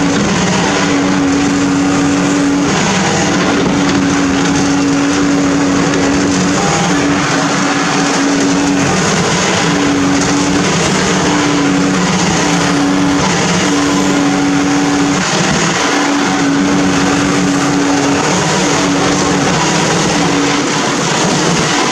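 Amphibious backhoe (TKM200-10) working in water: its engine and hydraulics run steadily, with a pitched drone that cuts in and out every second or two as the arm is worked.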